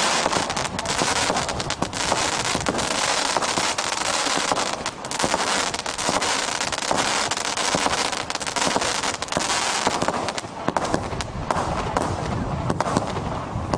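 Mardi Gras 136-shot firework cake firing in rapid succession: a dense, continuous stream of shots and bursts that run together, thinning a little over the last few seconds.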